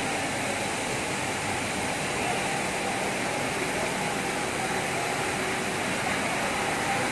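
PVC coil mat production machine running: an even, steady mechanical noise with a few faint steady tones, unchanging throughout.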